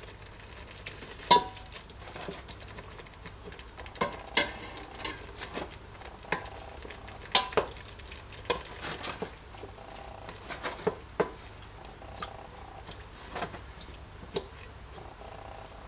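Wooden spoon stirring a thick tomato and paprika paste in a stainless steel pot, with irregular knocks of the spoon against the pot's side and bottom. A faint sizzle of the paste frying runs underneath.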